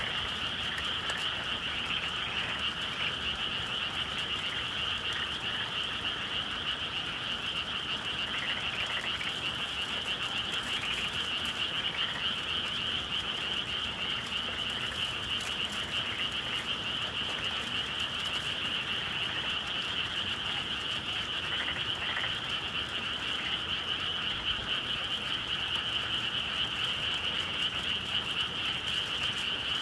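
A dense, steady chorus of many frogs calling at once, with no break or change.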